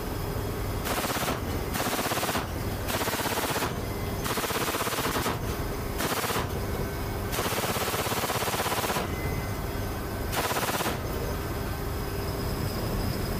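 Ramp-mounted machine gun firing seven bursts of rapid fire, each from about half a second to a second and a half long, the longest a little past halfway. A steady aircraft engine drone runs underneath.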